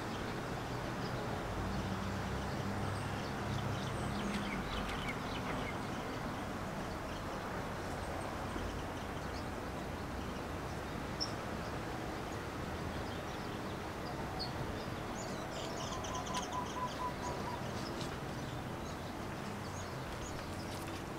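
Steady background noise with a faint low hum in the first few seconds, and faint high bird chirps a few seconds before the end.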